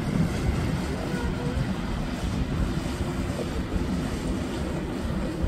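Steady rumble of a passing motorboat's engine and its wake on the water, mixed with gusty wind buffeting the microphone.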